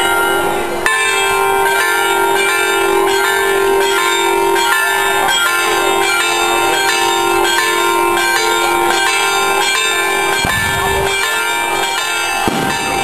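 Church bells pealing, struck over and over so that the strokes overlap into continuous ringing. Near the end there is a brief low whoosh from a firework rocket going up.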